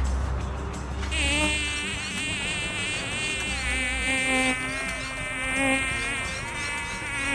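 A buzz like a flying insect's, its pitch wavering, starting about a second in and running on steadily.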